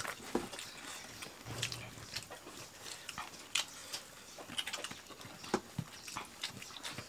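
Several people eating rice with their fingers: scattered lip smacks, chewing and small clicks, with a brief low hum about one and a half seconds in.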